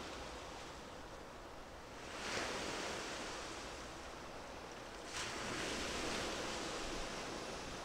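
Small waves washing against the shore over a steady hiss. Two surges come about three seconds apart, each rising suddenly and fading away.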